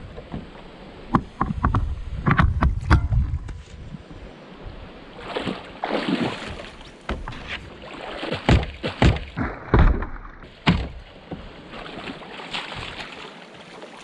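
Water splashing and sharp knocks around a fishing kayak, coming and going irregularly and loudest a couple of seconds in and again about two thirds of the way through.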